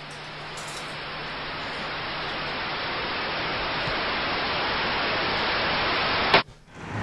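Television static hiss, the noise of a set with no signal, growing steadily louder and then cutting off abruptly near the end.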